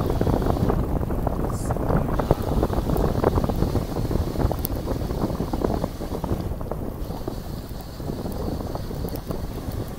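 Wind buffeting the microphone of a 360-degree camera carried on a bicycle ride: a loud, rough rumble with crackles, easing slightly after about six seconds.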